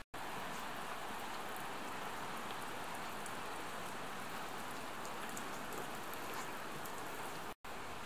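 Rain falling: a steady hiss with faint scattered ticks of drops. The sound drops out briefly twice, just after the start and near the end.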